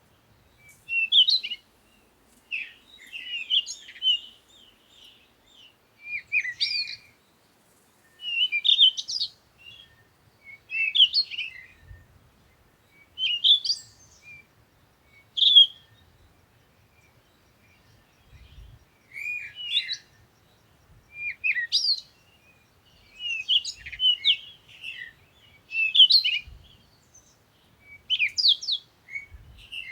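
Songbird chirping: short phrases of quick, high notes repeated every second or two, with a brief lull about halfway through.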